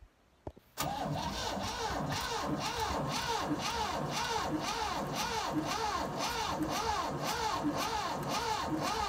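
1967–68 GMC pickup engine being cranked by the starter, turning over but not firing. After a near-silent moment it starts about a second in, then runs steadily with the starter's pitch rising and falling in a regular rhythm, about two to three times a second, as the engine comes up on each compression stroke.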